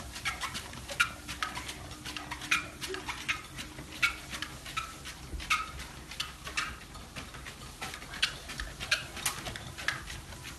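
English bulldog walking on a dog treadmill, its feet and claws hitting the belt in a steady patter of about two sharp clicks a second.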